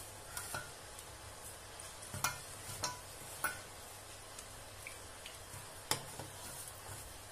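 Hands mixing and kneading wheat flour dough with a little water in a stainless steel bowl, quiet rubbing and working of the dough. Four sharp clicks of something knocking against the steel bowl, three between about two and three and a half seconds in and one near six seconds.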